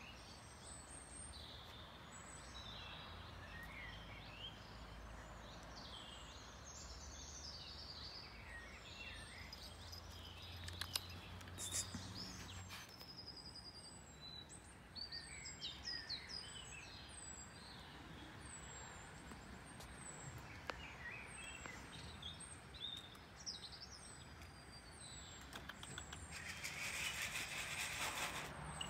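Small songbirds chirping and singing, many short high notes, over a low steady rumble. Near the end a loud rushing hiss swells for a couple of seconds.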